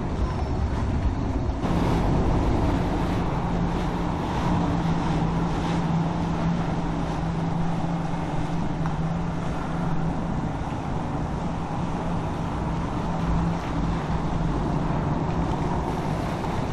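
Passing motor yachts' engines running with a steady low hum, over water wash and wind on the microphone; the hum sets in about two seconds in.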